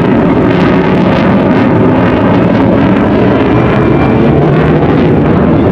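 Loud, steady roar of a Eurofighter Typhoon's two EJ200 turbofan jet engines as the fighter flies its display.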